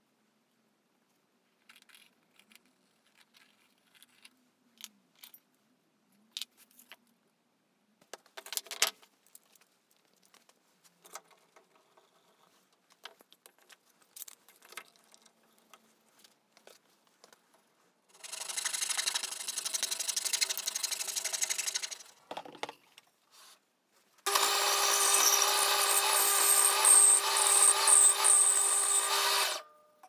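Light knocks and clicks of wood and tools being handled, with a louder clatter about nine seconds in. A power tool then runs for about four seconds. After a short pause, a benchtop bandsaw runs for about five and a half seconds with a steady motor tone, cutting a curved piece from a pine board, and cuts off sharply near the end.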